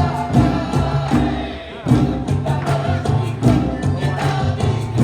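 Loud amplified live music with singing, a heavy bass line and a steady drum beat. The music drops back briefly about a second and a half in, then comes straight back in.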